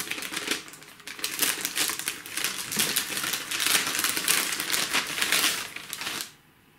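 Thin plastic wrapping crinkling and tearing as it is pulled off a sealed instruction booklet: a dense run of crackles that stops near the end.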